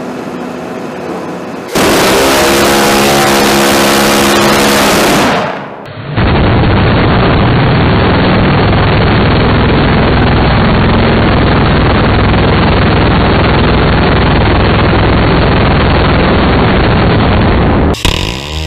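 Land-based Phalanx (C-RAM) 20 mm six-barrel Gatling cannon firing long continuous bursts, the shots coming so fast that they blend into one steady buzzing "zip". First comes a burst of about four seconds, then a brief break, then a burst of about twelve seconds, then a short one near the end.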